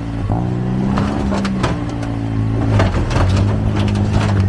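An off-road vehicle's engine running under load, its revs dipping and rising a few times. Several sharp knocks and clatters sound over it, about a second and a half in and again about three seconds in.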